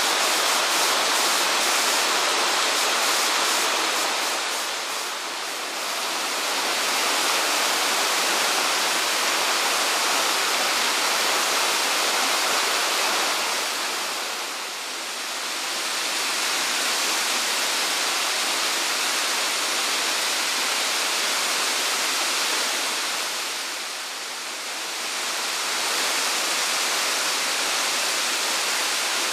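A waterfall's falling water making a steady rushing noise. It eases off briefly three times, about 5, 15 and 24 seconds in.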